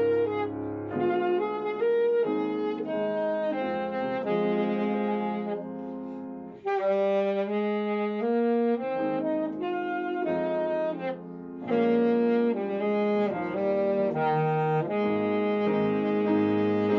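Alto saxophone playing a melody in phrases, with short breaks about six and eleven seconds in, over a steady lower accompaniment. The player is a beginner about three months into lessons, playing toward the ending of a piece.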